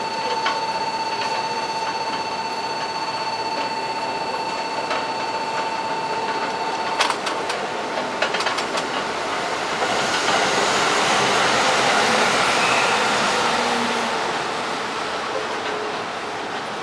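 Trains at a railway level crossing. A steady high tone holds for about seven seconds and cuts off suddenly, followed by a run of clicks and then the rushing noise of a passing train, which swells to a peak and fades.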